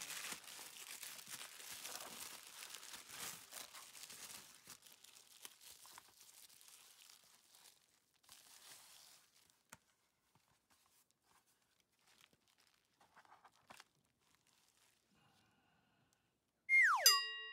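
Plastic bubble-wrap and tissue-paper packing crinkling as a makeup palette and its case are handled, thinning out to a few light clicks and taps. Near the end comes a short, loud tone that drops steeply in pitch and then holds.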